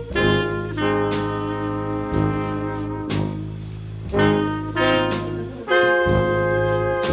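Jazz background music with a horn-led melody, notes held about a second each over a steady accompaniment.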